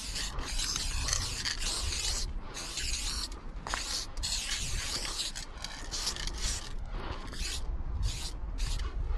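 Aerosol spray paint can hissing in a series of stop-start bursts, some brief and some about a second long, as a graffiti tag is sprayed onto a pipe cover.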